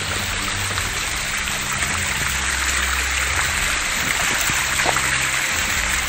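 Water cascading down a rock face in a small stream, a steady rushing splash.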